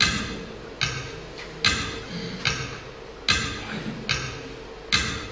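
Clock ticking as a stage sound effect, marking hours passing: loud, evenly spaced ticks a little over one per second, each with a short ringing decay, over a faint steady hum.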